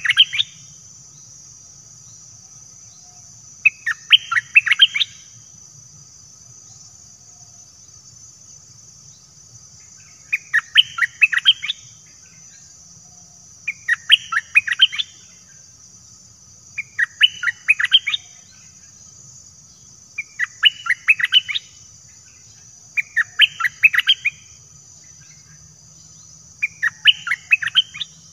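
Bulbul singing: short phrases of quick notes, repeated about every three to four seconds, against a steady high-pitched insect drone.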